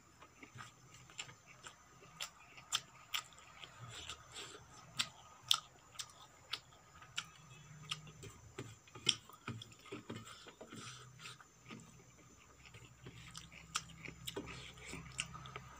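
Close-miked chewing of rice and vegetable curry, with many sharp, irregular wet mouth clicks, while fingers mix rice on a steel plate.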